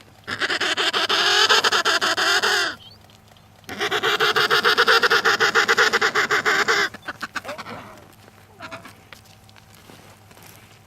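An animal calling: two long, rapidly pulsing calls, the second a little longer, followed by a few fainter pulses trailing off.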